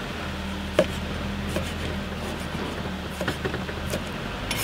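A wide-bladed knife slicing through grilled pork loin and striking a wooden cutting board: a few sharp knocks, the loudest about a second in, over a steady low hum.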